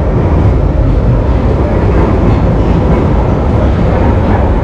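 London Underground tube train at the platform or under way, a loud, steady rumble that is heaviest at the low end.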